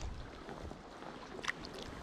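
Water sounds of a sea kayak under way: a low, even wash of water along the hull with small drips and splashes from paddling, and a sharper splash about one and a half seconds in.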